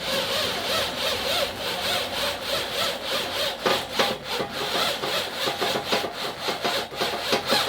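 A hand saw cutting, with rapid, even back-and-forth strokes.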